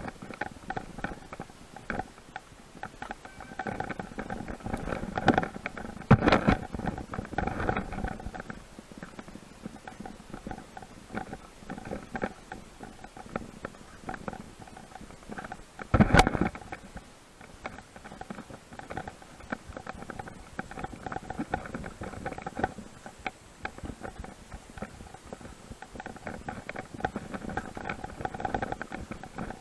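Mountain bike ridden over a dirt singletrack trail: the frame and parts clatter and tick continuously over the rough ground, with loud jolts about six seconds in and again near sixteen seconds.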